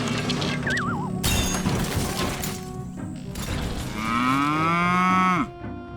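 A jumble of prank sound effects playing at once, with a short falling warble about a second in, then a loud cow moo that swells and drops off sharply about five and a half seconds in.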